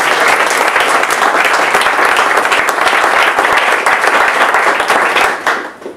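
Small audience applauding, many hands clapping steadily and dying away near the end.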